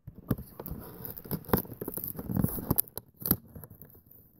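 Knife cutting and scraping at the packaging tape on a toy box: irregular scratching with a few sharp clicks.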